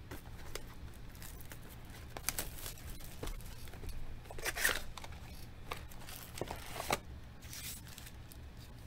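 Foil trading-card packs and a cardboard box being handled and opened: wrappers crinkling and tearing in scattered rustles, the loudest about halfway through, dying down near the end.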